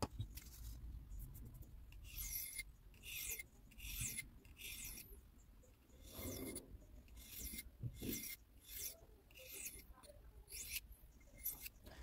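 Victorinox Swiss Army knife blade being stroked across a wetted sharpening stone: a faint, repeated scraping rasp, a dozen or more short strokes about every half second to second.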